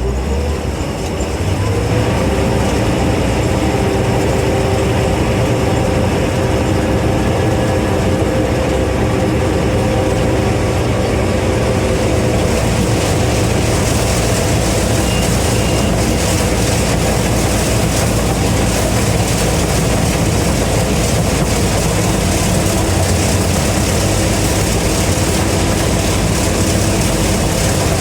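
Gleaner M3 combine running under load while picking corn: a steady drone with several steady whining tones over it, rising in level about a second in and then holding even.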